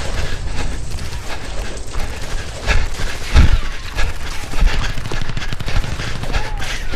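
Gunfire in a firefight: many sharp shots in rapid, irregular bursts, with one heavier, louder bang about three and a half seconds in.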